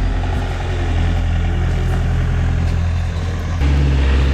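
Heavy diesel engine running steadily, then stepping up louder and slightly higher about three and a half seconds in, as under added load or throttle.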